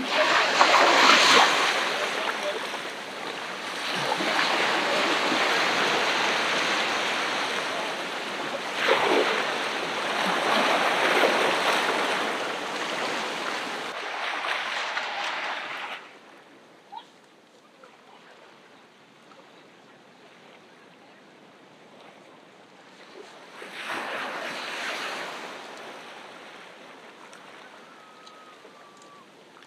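Ocean surf breaking and washing up a beach in repeated surges. About sixteen seconds in it drops suddenly to a quiet lull, and one softer wash comes near the end.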